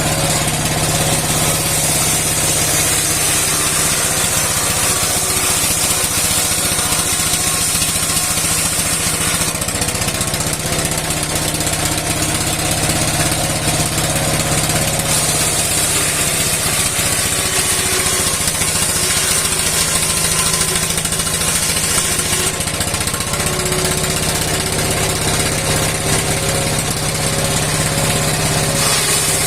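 An old stationary engine, about sixty years old, running steadily while it drives a steel saw blade for cutting wood, with a high hiss above it that swells and fades.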